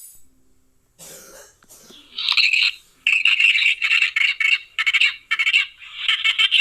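A sneeze sound, heavily edited: a breathy intake, then a loud high-pitched burst about two seconds in, followed by a run of rapid chopped-up repeats.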